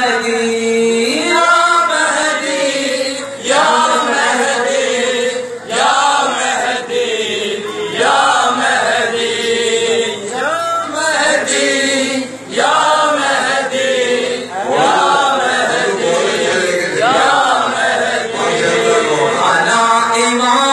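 Shia noha, a mourning lament, chanted live by a group of male voices, one melodic line in repeated phrases of about two seconds each.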